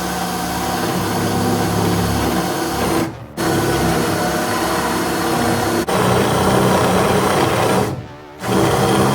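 A woodworking power tool running loud and steady, stopping and starting abruptly: about three seconds in, again near six seconds, and briefly about eight seconds in.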